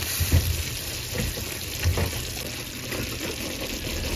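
Sugar syrup bubbling in a pan with fried besan pearls (mihidana) boiling in it so they soak up the syrup, with a couple of soft knocks from a silicone spoon stirring.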